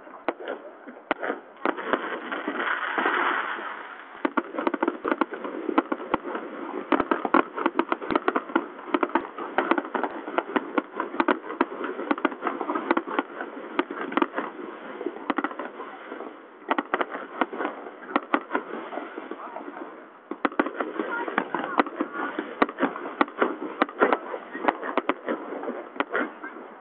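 Aerial fireworks display going off: bangs and crackles in quick, nearly unbroken succession, with two brief lulls in the second half.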